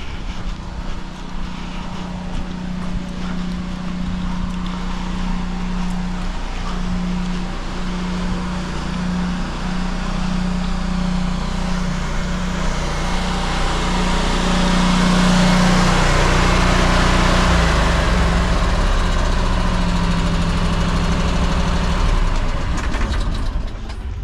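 An engine running steadily with a constant low hum, while a rushing noise builds up through the middle and stops abruptly near the end.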